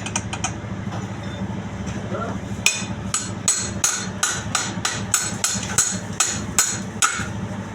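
Hammer striking metal in a quick, even run of ringing blows, about four a second, starting nearly three seconds in and stopping shortly before the end, over a steady low machine hum.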